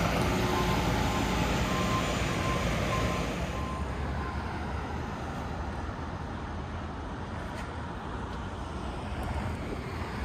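Small Volvo rubbish truck's warning beeper sounding in a steady on-off pulse over its running engine. The beeping stops about three and a half seconds in, leaving a quieter steady background noise.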